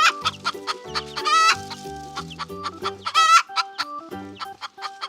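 A hen clucking: short calls, four or so spaced a second or two apart, over light background music.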